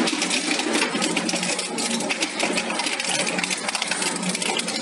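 Twin-shaft industrial shredder running, its hooked cutter discs turning with a dense, rapid metallic clatter over a steady motor hum.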